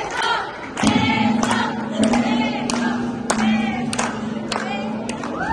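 A crowd of guests cheering and whooping together, with scattered claps and a steady low tone held beneath from about a second in.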